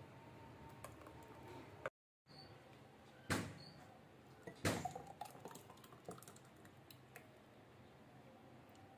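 A spoon faintly clicking as it stirs in a glass bowl, then glassware knocks and the thick mango custard drink splashing into a glass as it is poured from a glass jug. The two loudest knocks come about three and a half and five seconds in, the second followed by a short run of splashes.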